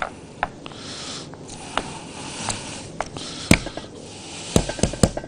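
A few short, sharp knocks and taps over a quiet room hum, the loudest about three and a half seconds in and a quick run of them near the end: a kleicha mould being knocked on the counter to free the shaped pastry.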